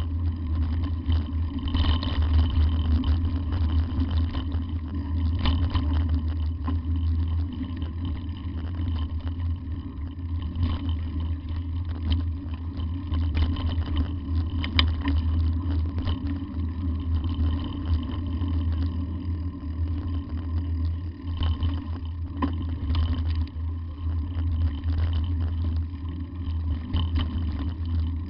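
Vehicle driving on a corrugated washboard dirt road: a steady, heavy low rumble of engine and tyres, with a few sharp knocks and rattles.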